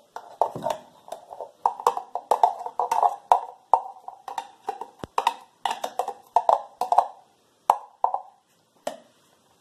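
A kitchen utensil knocking and scraping against a container as canned chipotle chiles are emptied into the blender: a quick, irregular run of knocks, each with a short ringing tone, thinning out near the end.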